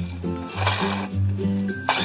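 Upbeat background music: a simple stepping melody over a bass line, with a steady beat.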